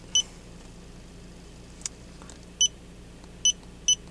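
Handheld iCarsoft i810 OBD-II scanner beeping as its keys are pressed: four short beeps, one right at the start and three close together near the end, with a faint click near the middle. Under them runs the faint steady hum of the car's engine idling.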